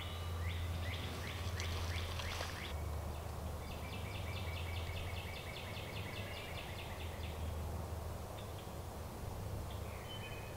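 Songbirds singing in spring woodland. First comes a run of repeated, sweeping notes; then, about four seconds in, a steady trill of about four or five notes a second that lasts a few seconds.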